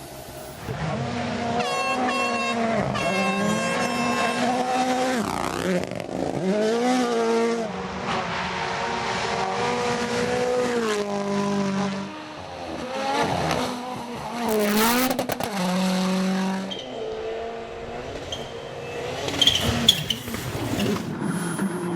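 Rally cars driven flat out: engines screaming at high revs, the pitch climbing through each gear and dropping sharply at shifts and lifts, with abrupt changes from one car to the next. A few sharp cracks near the end.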